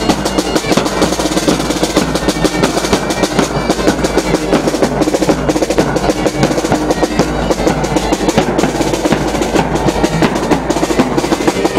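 Marching band drumming: rapid snare drum rolls over a bass drum beat, played without a break.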